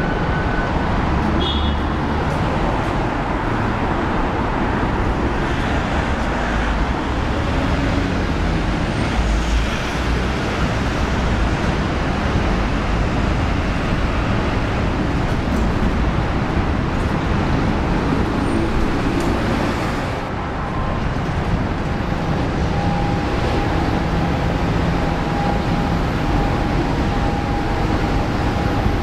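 Steady road traffic noise from a busy city street, with cars and trucks passing.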